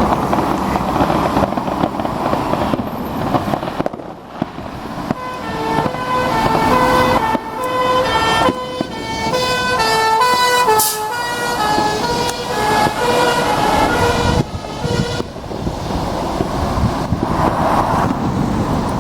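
Fire engine on an emergency run: its engine running and a siren sounding in alternating high and low tones for about ten seconds in the middle, over the steady noise of the vehicle.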